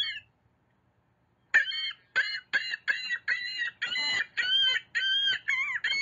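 Laughing gull giving its laughing long call: a series of about ten nasal 'ha' notes starting about a second and a half in, the later notes drawn out longer.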